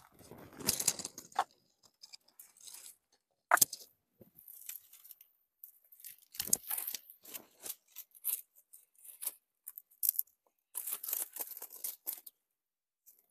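Dry grass and tree branches rustling and crackling as they are pushed and packed by hand against a boulder, with a sharp crack about three and a half seconds in.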